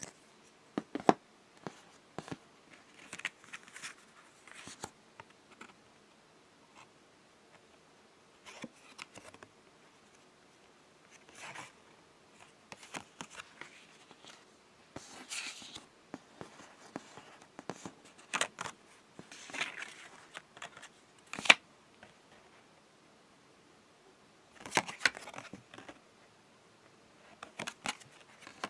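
Hands handling a plastic Pokémon game tag and trading cards on a table: scattered clicks and taps of the tag being set down, with rustling and sliding of card stock in short bursts. A few sharp clicks stand out among the softer handling noise.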